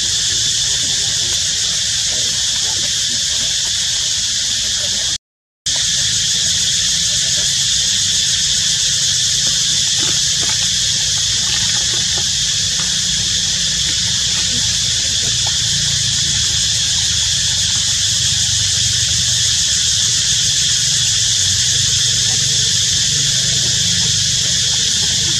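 Steady, high-pitched insect chorus over a low rumble, cutting out for a split second about five seconds in.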